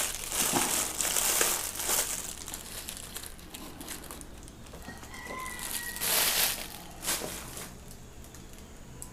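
Packaging crinkling in bursts as it is handled, loudest in the first two seconds and again briefly past the middle, with a sharp light knock about seven seconds in.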